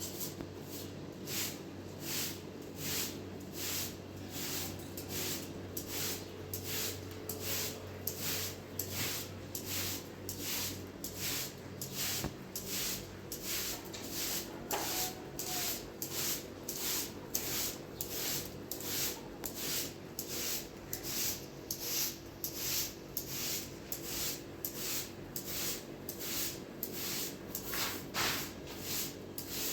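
Steady, rhythmic rubbing or scrubbing strokes, about three every two seconds, like a brush or cloth worked back and forth over a surface.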